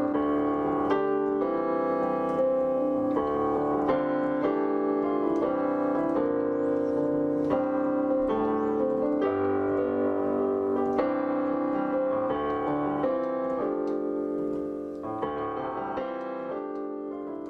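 Piano improvisation of slow, sustained chords and melody notes, fading down near the end.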